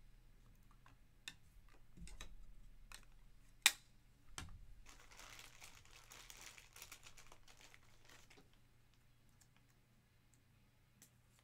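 Foil trading-card pack wrapper crinkling and cards being handled, with scattered light clicks and one sharper tap a little before four seconds in. The rustling is busiest in the middle and fades toward the end.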